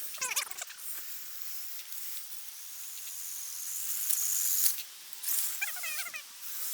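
Electric motors and gearboxes of radio-controlled trucks whining in short bursts that swoop up and down in pitch, once right at the start and again around six seconds in. Between them runs a steady hiss that grows louder until just before five seconds in.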